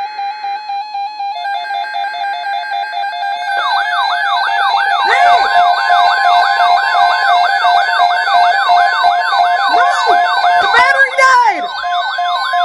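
Several NOAA weather radios sounding their alert alarms at once for an incoming severe thunderstorm watch. A pulsing beep and a steady tone are joined about three and a half seconds in by many rapid warbling siren tones layered together, and a new steady tone comes in near the end.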